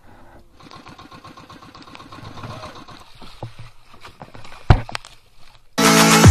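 Faint steady mechanical running noise with scattered knocks and one sharp knock a little before five seconds in, aboard a small outrigger fishing boat. Near the end loud electronic dubstep music cuts in abruptly.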